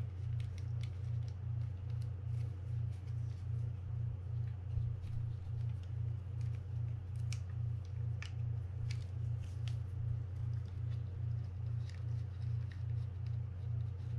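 Light, scattered clicks of small plastic and metal fishing-reel parts (Penn 320GTi frame, side plate and screws) being handled and fitted together, over a steady low hum that pulses a few times a second.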